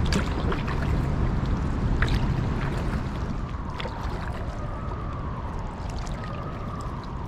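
Kayaks being paddled on open river water: a steady low rush of water and air on the microphone, with short splashes and drips from the paddle blades. From about four seconds in, a faint wavering tone sounds in the background.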